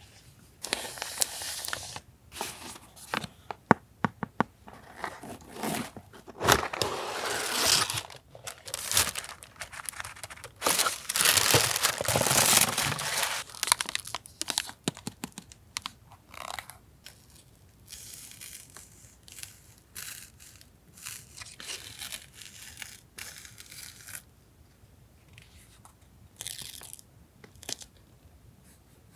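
Stationery packaging being handled and torn open: loud bursts of tearing and crinkling with a run of sharp clicks in the first half, then quieter, scattered rustling.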